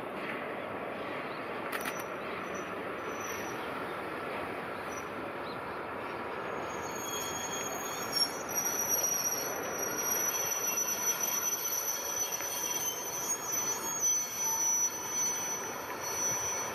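Freight train of tank wagons rolling slowly over the rails during shunting. From about seven seconds in, the wheels squeal against the rails in high, steady tones that waver in loudness.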